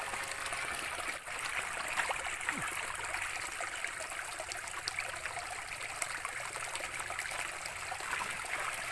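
Shallow stream trickling over rocks, with scattered small splashes and sloshing as someone wades through it in rubber boots and dips electrofishing poles into the water.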